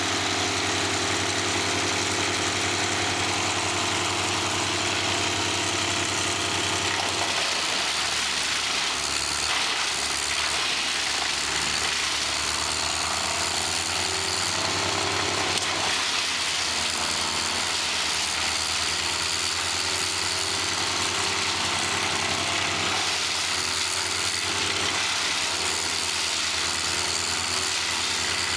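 A 1998 Vermeer 1250 BC wood chipper running while chipping pine, with a constant rattling and grinding. Its engine holds a steady note for the first seven seconds or so, then wavers and dips as it takes load, before steadying again near the end.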